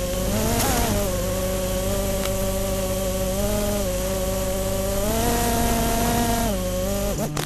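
FPV quadcopter's brushless motors whining as a buzzing drone, the pitch stepping up about half a second in and again around five seconds, then dropping back with the throttle; near the end the buzz shifts abruptly to a lower, steadier hum.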